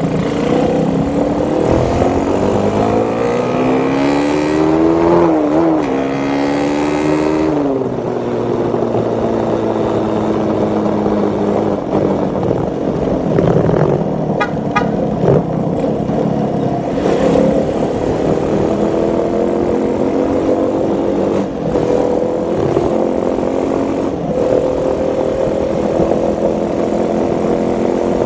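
Motorcycle engine under way, rising in pitch as it accelerates for the first several seconds, dropping sharply about seven seconds in, then running at a steady pitch that climbs slowly again.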